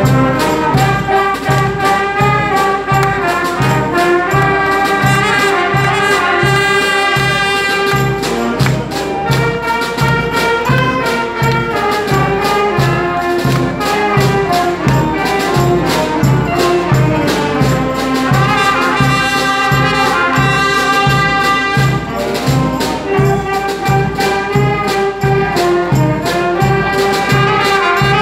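Brass street band of trumpets, trombones, saxophones and sousaphone playing a tune, with a steady low beat about twice a second.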